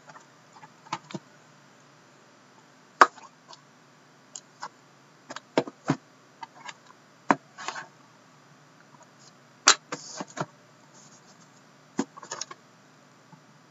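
Shrink-wrapped cardboard card boxes being handled and set down on a table: scattered taps and knocks, the sharpest about three seconds in and near ten seconds, with a few brief plastic-wrap rustles between them.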